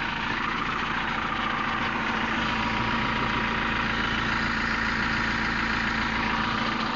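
A motor vehicle's engine idling steadily, with an even hum and no revving.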